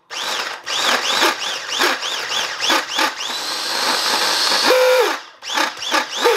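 Philips electric mini chopper pulsed in quick short bursts while chopping garlic and ginger into paste, its motor whine rising and falling with each press. It then runs steadily for about a second and a half before being pulsed again.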